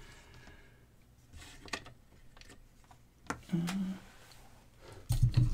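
Light clicks and taps of test leads and alligator clips being handled against a flashlight on a tabletop, with a short murmur of voice about three and a half seconds in and a loud low thump near the end.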